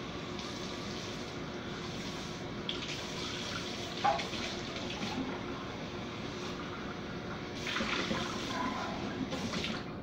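Water running from a kitchen tap in two stretches, about three seconds in and again near the end, over a steady background hiss, with a sharp knock about four seconds in.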